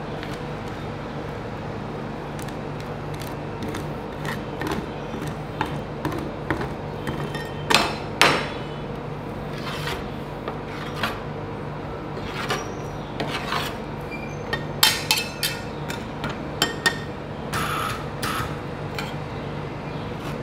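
Steel spatulas chopping Meiji strawberry chocolate into a layer of ice cream base on a frozen metal plate and scraping it flat: irregular metal-on-metal clicks and knocks, with a few louder strikes, over a steady hum.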